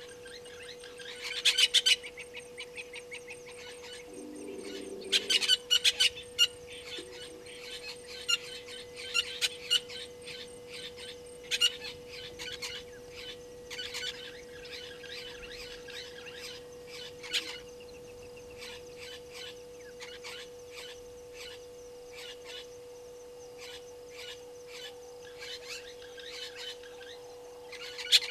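Bursts of rapid, high-pitched chirping animal calls every few seconds, loudest about a second and five seconds in and again near the end, over a steady faint hum.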